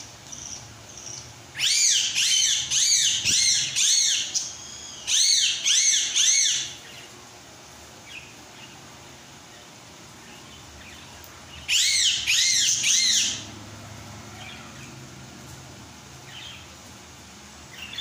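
Budgerigar chirping in quick runs of short, high chirps, each rising and falling. There are three bursts, the first two close together and the third several seconds later, with quiet background hiss between them.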